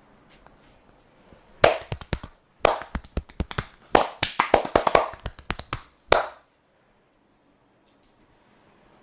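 Percussive massage strokes: hands slapping and chopping on the body in quick runs of sharp strikes, several a second, starting about a second and a half in and stopping about six seconds in.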